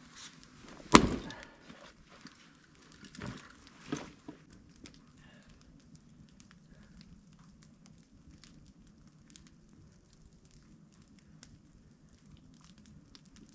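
Firewood knocking: one sharp, loud wooden knock about a second in, two smaller knocks a couple of seconds later, then only faint scattered ticks.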